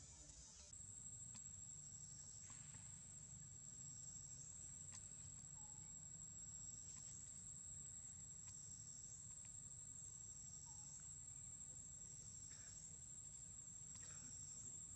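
Faint insect chorus: a steady high-pitched trill that swells in regular pulses about every one and a half seconds, with a few faint clicks.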